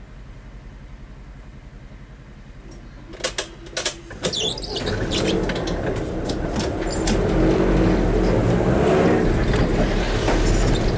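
Car engine idling, heard from inside the cabin, then a few sharp clicks about three seconds in, then the engine pulling away and gathering speed with tyre noise on the wet road.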